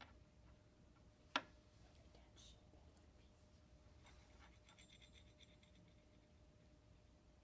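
Faint handling of thin wire ends and a small plastic connector being fitted together by fingers, with one sharp click about a second and a half in and light scratching later on.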